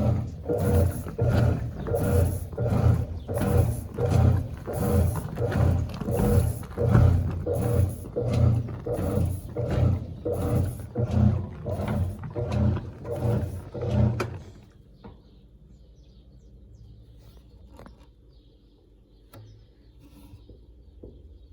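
GE Imagination 10 kg top-load washing machine agitating: its motor and agitator churn back and forth in quick, regular, growling strokes. The strokes stop abruptly about 14 seconds in, leaving only a faint hum.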